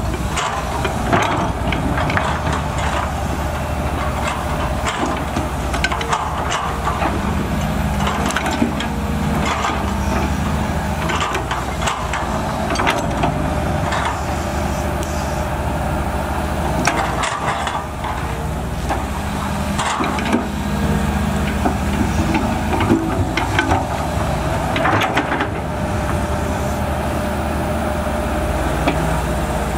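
Volvo EC210BLC excavator's diesel engine running steadily under working load, with a steady whine above it and frequent short clanks and knocks as it digs.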